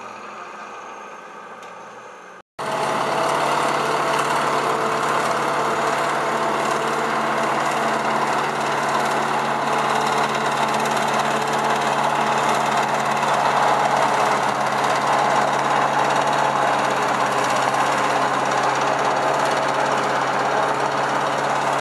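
Tractor engine running, then, after a sudden cut about two and a half seconds in, a much louder steady drone of a forage harvester chopping maize and blowing it into a trailer, with the tractor pulling the trailer running alongside.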